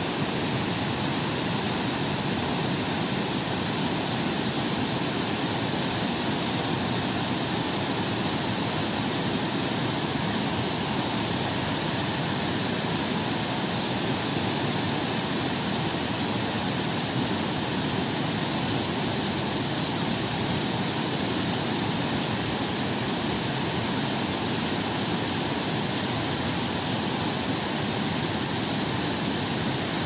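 Waterfall spilling over wide stepped rock ledges into a pool: a steady, unbroken rush of falling water.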